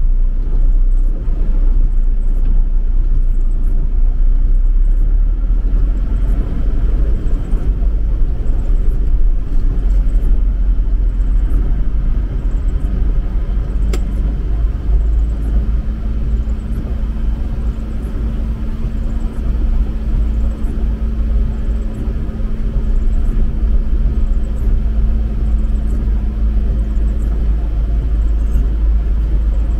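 Steady low rumble inside the cab of an Isuzu Traviz truck driving slowly through flood water. A faint steady hum joins about halfway through and fades out near the end.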